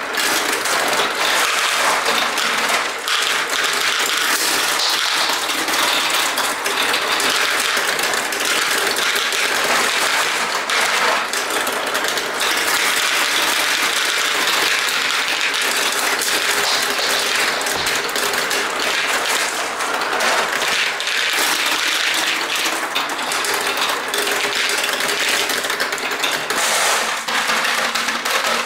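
Many marbles rolling and clattering down a plastic Duplo-block marble run: a dense, unbroken rattle of small clicks.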